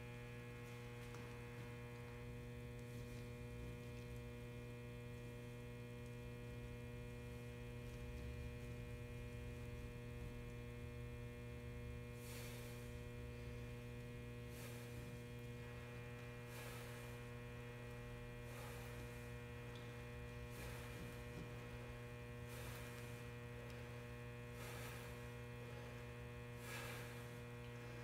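Steady low electrical hum with evenly spaced overtones. From about halfway through, faint soft swishes come roughly every two seconds.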